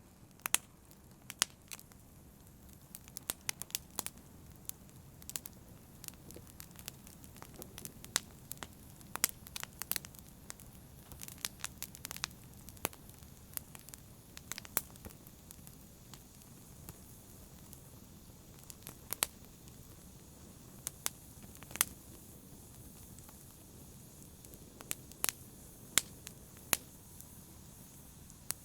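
Wood fire burning in a fireplace: a low steady hiss with sharp, irregular crackles and pops, busier in the first half and sparser in the middle.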